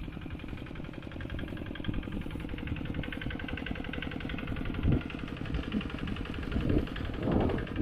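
Engine of a hand tractor plowing a rice paddy, running steadily with rapid even firing pulses, with a couple of louder swells about five and seven seconds in.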